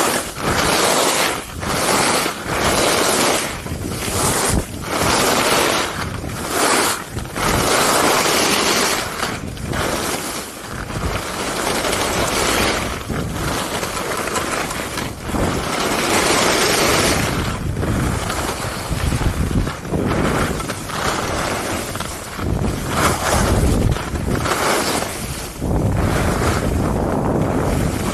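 Skis carving down a groomed piste: a rushing hiss of the edges scraping the snow that swells and fades with each turn, every second or two, mixed with wind noise on the camera microphone.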